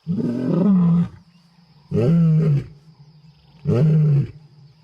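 A lion roaring: three deep roars, each about a second long, about two seconds apart.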